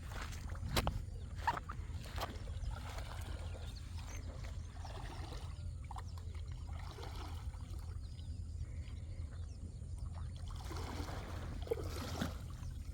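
Water splashing and sloshing over a steady low rumble, with two sharp knocks about a second in.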